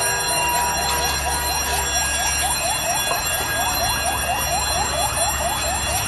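Car alarm sounding a rapid, unbroken run of short rising whoops, over a steady low rumble.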